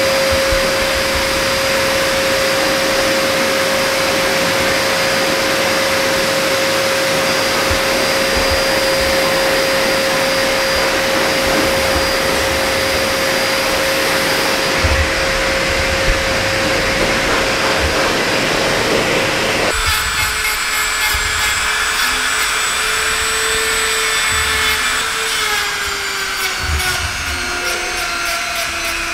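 Pet grooming force dryer blowing air through its hose and nozzle at a dog's coat, a loud steady rush of air with a steady hum. About two-thirds of the way in the sound changes, thinner and with a lower hum that slowly falls in pitch.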